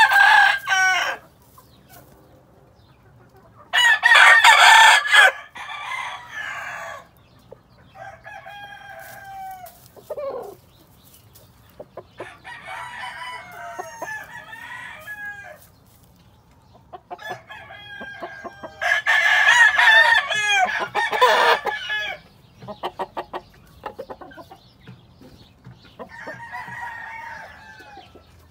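Gamefowl roosters crowing over and over, with clucks between. The loudest crows come about four seconds in and again around twenty seconds in, with fainter crows in between and a run of quick clucks just after the second loud crow.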